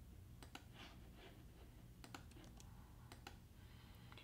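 Faint, scattered key clicks of typing on a laptop keyboard, about ten irregular taps over quiet room tone.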